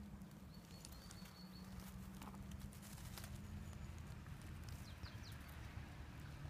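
Faint rustling and clicking in dry leaf litter over a low rumble of handling noise. A few faint, high bird chirps come near the start and again about five seconds in.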